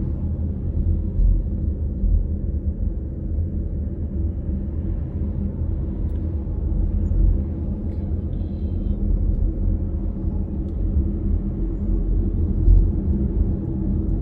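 Steady low rumble of a car's engine and running gear, heard from inside the cabin.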